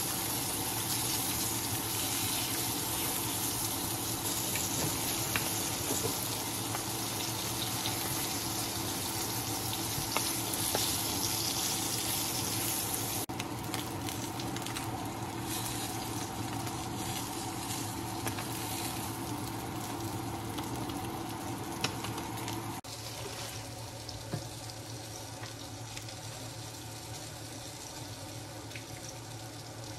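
Flour-dredged smelt frying in oil in a nonstick pan, a steady sizzle. The sizzle drops a little quieter about three-quarters of the way through.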